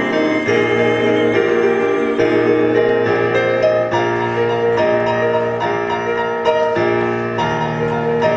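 Instrumental keyboard accompaniment of a musical-theatre ballad, playing sustained chords that change about once a second, with no singing.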